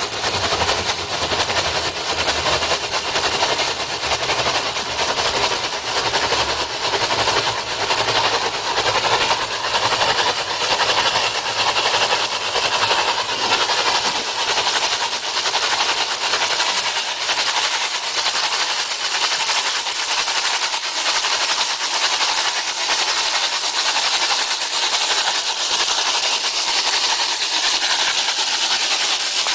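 Drilling mud blasting out of the ground under pump pressure where a directional drill bit has broken through the surface: a loud, steady hiss with a fast, fine crackle running through it.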